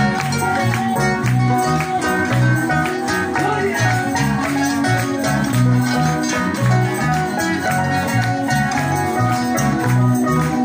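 Live band playing an upbeat praise song: guitar and bass over a steady, even beat.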